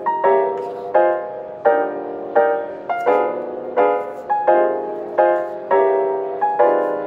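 Background music: a piano playing a slow, gentle run of chords, one struck about every two-thirds of a second, each fading before the next.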